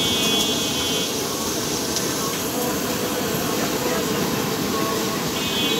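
Potato sticks deep-frying in a large karahi of bubbling oil: a steady sizzle, with street noise and voices behind it.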